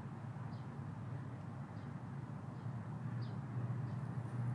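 A steady low hum, with a few faint, short, high bird chirps scattered through it.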